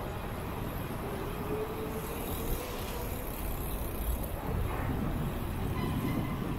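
Steady city road traffic noise from passing motor vehicles, with no single event standing out.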